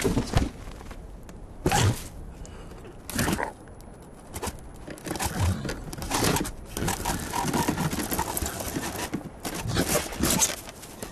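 Cartoon slapstick sound effects of a dead tree branch giving way: a few sharp knocks in the first few seconds, then a longer stretch of scraping, splintering wood.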